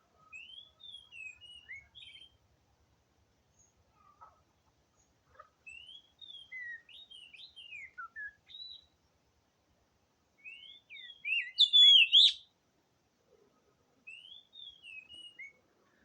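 Oriental magpie-robin song: four bouts of quick, varied whistled phrases with short silences between them, the third and loudest bout about eleven to twelve seconds in.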